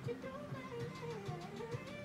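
Pop music playing from a television: a gliding lead melody over a steady beat.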